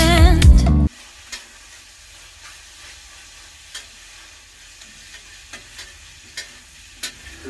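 Food sizzling faintly in a frying pan, with a few light clicks of a utensil stirring it; music cuts off about a second in.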